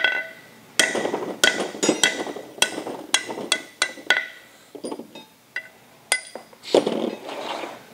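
Ball-peen hammer striking a steel drift to drive pitted, rusted tapered pins out of a Ford Model T's cast-iron flywheel. About a dozen sharp, ringing metal-on-metal blows come in the first four seconds, then fainter clinks.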